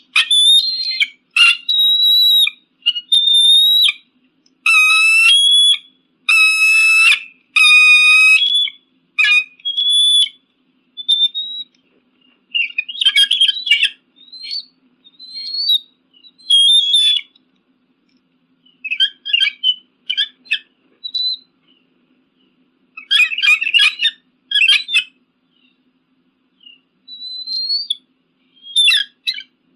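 Eagle calling: a series of high, thin whistled cries, several held for about a second in the first third, followed by shorter notes and bursts of rapid chattering, with silent gaps between calls.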